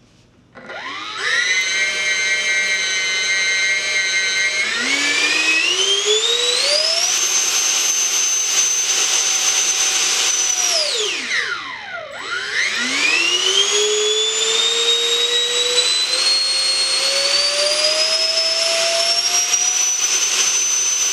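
Dr. Madthrust 70mm eight-blade all-metal electric ducted fan with an inrunner motor, run up by throttle: a high whine that spools up, climbs to full power and holds, winds down about eleven seconds in, then spools up again and climbs steadily to full power near the end. At full throttle the fan pushes hard enough to push back against the person holding the model.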